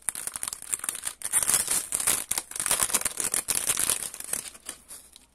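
Clear plastic packaging bag crinkling and rustling in the hands as it is opened, with many small crackles, fading out near the end.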